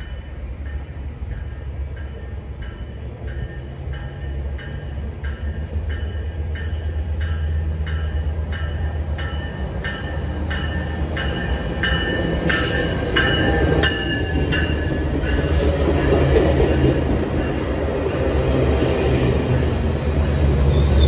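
A Metrolink bilevel commuter train approaches and rolls by at the platform, the rumble of its wheels growing louder through the second half. Through the first half a grade-crossing bell clangs about twice a second.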